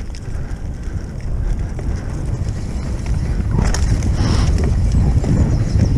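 Wind buffeting a helmet camera's microphone over the rumble of mountain bike tyres rolling fast on a leaf-covered dirt trail, with bike rattle growing louder a little past halfway.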